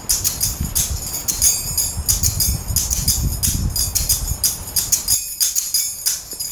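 Background music with a steady jingling, tambourine-like beat, about three strokes a second, over a low rumble that stops about five seconds in.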